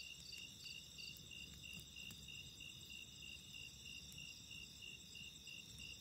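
Faint chorus of crickets, several at different pitches, chirping in a steady even pulse, with a few faint pops from a campfire.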